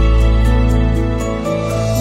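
Background music: soft, slow new-age style track with sustained notes over a steady beat.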